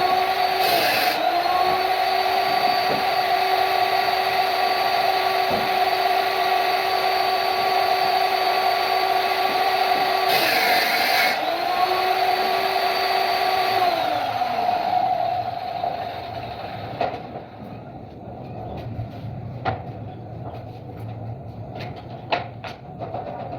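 A woodworking power tool's motor running with a steady high whine. Its pitch sags briefly twice while short rasping bursts sound, as it cuts wood. It spins down about 14 seconds in, and scattered knocks and clicks of wood being handled follow.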